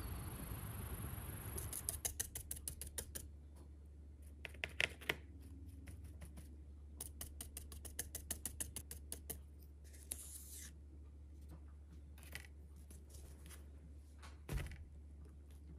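Stencil brush pouncing white paint through a card stencil onto a pumpkin: fast runs of light dry taps in several short bursts with pauses between, then a single thump near the end.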